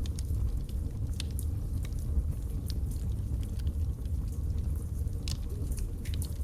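Log fire burning in a fireplace: a steady low rumble of the flames with irregular sharp crackles and pops from the burning wood.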